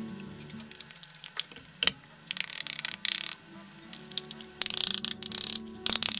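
Hand-tool clicks, taps and rattling scrapes of a hammer working nails into a small wooden shelf, over soft background music. The busiest run of strokes comes about two-thirds of the way in.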